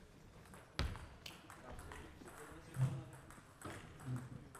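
A few sharp clicks of a celluloid table tennis ball bouncing and being tapped, ringing a little in a large hall, with a louder low thump about halfway through and faint voices underneath.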